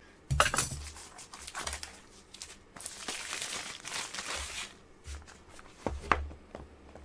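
Clear cellophane shrink-wrap being torn and peeled off a cardboard box, crackling and crinkling as it is pulled away and crumpled, with a couple of light knocks near the end.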